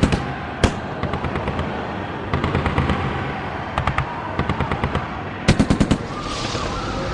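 Gunfire in bursts: scattered single shots and short volleys, with a quick burst of about six shots near the end, evoking an army firing on strikers.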